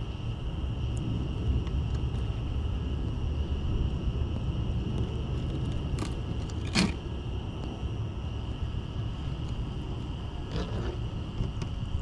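A fillet knife cutting fish and tapping on a plastic folding table, with a sharp click about six seconds in and another, louder one just before seven seconds. Under it runs a steady low rumble and a steady high drone.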